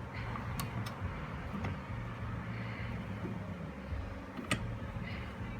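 A few sharp metallic clicks and taps from the C-clamp and socket being handled on the jet pump housing, the loudest about four and a half seconds in, over a low steady hum.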